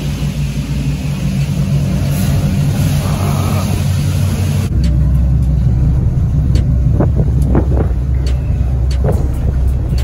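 A vehicle engine running steadily, with a hiss over it for the first half. Just under halfway in it changes abruptly to a deeper steady rumble with scattered light clicks and short squeaks.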